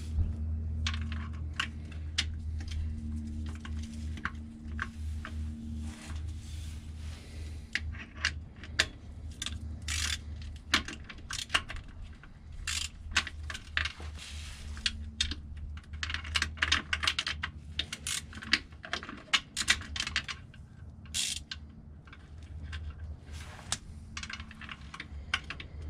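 Small hand ratchet and 10 mm socket clicking and clinking against the bolts of a VW MK4's oil pan, in irregular bursts of sharp metallic clicks while the bolts are worked loose. A steady low hum runs underneath.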